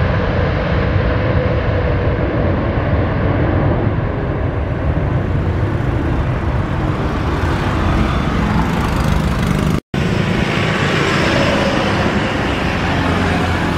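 Boeing 787-8 Dreamliner's jet engines running loud and steady as the airliner rolls out on the runway after touchdown. There is a brief dropout just before ten seconds in.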